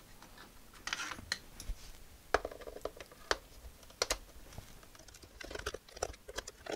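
Hands handling the plastic case of an Atari XC12 cassette recorder: scattered light clicks, taps and rustles, about one every half-second to a second.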